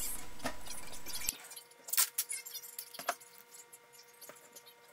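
Masking tape being handled and pressed down over a flattened piece of aluminium can: a few faint crackles and clicks, with a low steady hum under them.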